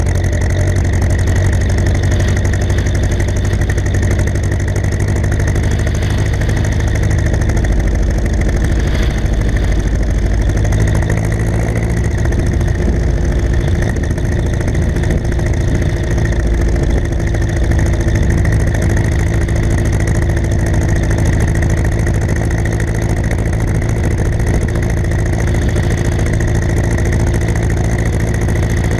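Ursus C-360 tractor's four-cylinder diesel engine running steadily, its note changing slightly about a third of the way in and then holding.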